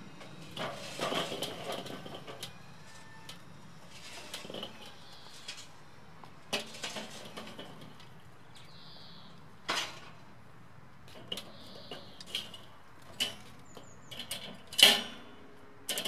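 Glowing charcoal briquettes tipped out of a metal chimney starter into a Weber kettle grill, clattering onto the grate, followed by scattered sharp metal clanks and knocks, the loudest near the end.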